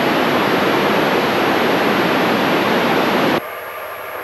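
Loud hiss of FM radio static from a handheld radio receiving the ISS voice-repeater downlink. It starts and stops abruptly, as the open squelch on a noisy pass does. About three and a half seconds in it drops to a quieter, noisy signal.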